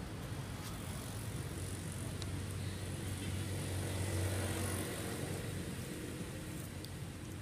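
Motor vehicle engine rumble that swells to its loudest about halfway through and then fades, as if a vehicle passes by.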